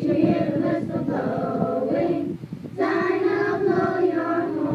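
Children singing together, holding long notes and moving between them, with a brief break about two and a half seconds in.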